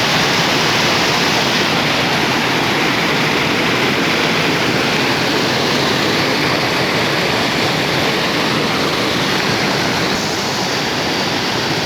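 Mountain spring water rushing and splashing in a steady, loud flow, a little quieter from about ten seconds in.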